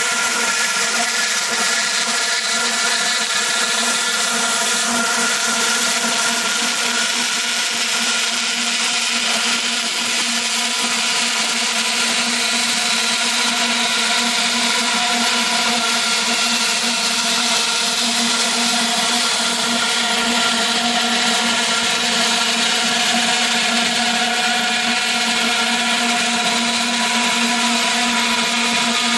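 Summa 740 Plastic Cut band saw running steadily, a constant motor hum with several held tones over a steady hiss.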